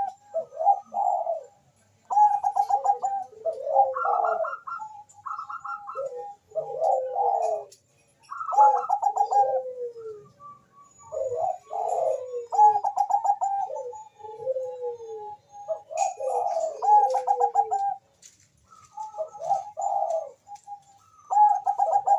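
Bangkok-strain zebra dove (perkutut) cooing in repeated phrases, each a fast stuttering run of trilled notes followed by falling coos, with short pauses between phrases.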